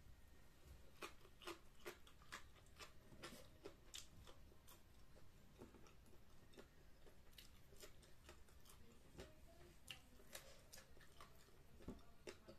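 Faint chewing of green papaya salad, with scattered soft crunches and mouth clicks a few times a second.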